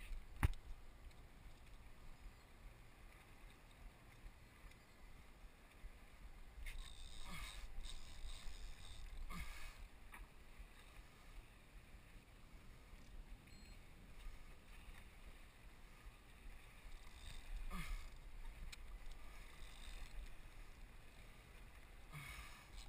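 Boat's Mercury outboard motor running at a low idle, a steady low rumble, with water washing along the hull. A sharp knock about half a second in, and a few brief louder rushes of noise later on.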